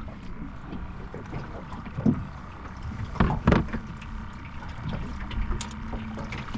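Small aluminium fishing boat afloat: a steady low rumble from the hull and water, with a few sharp knocks on the boat, the loudest two about three seconds in, half a second apart.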